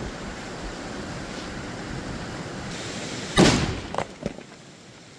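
Gunpowder charge, tamped with clay in a 1-inch hole drilled into a boulder, going off with one sharp blast about three and a half seconds in. Two smaller knocks follow close behind.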